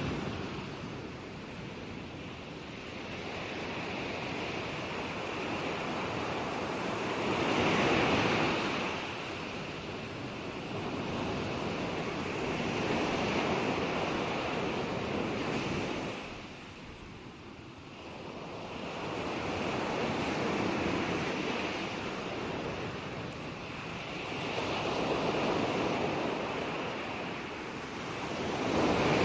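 Ocean waves breaking and washing in, the surf noise swelling and falling away about every five to six seconds, with a short lull midway.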